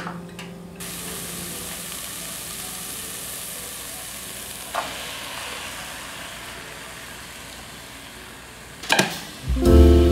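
Food sizzling in a hot pot as diced potatoes and zucchini go in and are stirred, with a short knock about halfway. A few utensil clatters against the pot come near the end.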